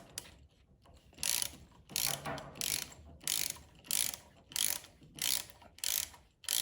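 Milwaukee 4-in-1 lineman's insulated ratcheting box wrench backing out a fastener: a short burst of pawl clicks on each return swing, repeating about one and a half times a second from about a second in.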